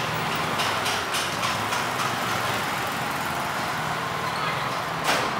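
Steady background noise, with one short sharp sound about five seconds in.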